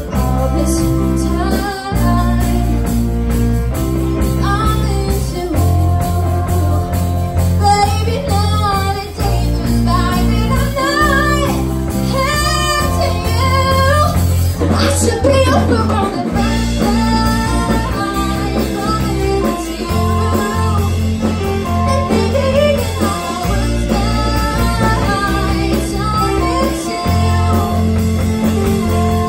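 Live rock band playing: electric guitars, bass guitar and drum kit with a saxophone, and a woman singing lead. The bass line moves in held notes that change every second or two.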